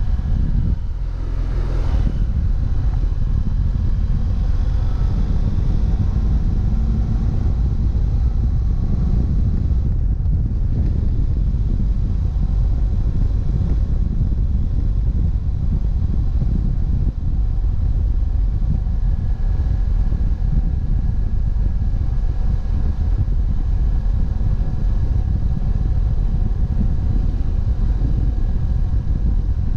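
BMW F700GS motorcycle under way: its parallel-twin engine running steadily, mixed with wind and road noise on the handlebar-mounted camera. About a second in the sound dips briefly, then the engine note rises over the next few seconds.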